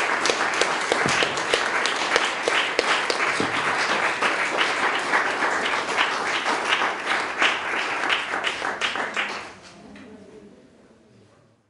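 Audience applauding with many hands, dense and even, dying away about nine to ten seconds in.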